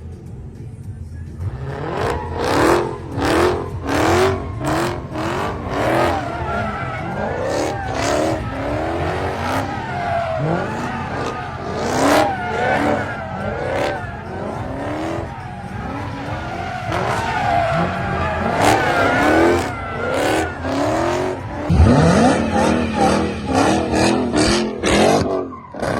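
Car engine revving again and again with tires squealing and wavering, as in a burnout or donuts. The sound changes abruptly about three-quarters of the way through.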